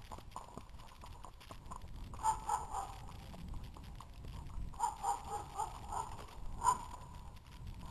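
A Standardbred horse moving along a grassy trail, its hoofbeats heard from the saddle. There are low rumbling noises throughout and brief clusters of ringing clicks, about three times.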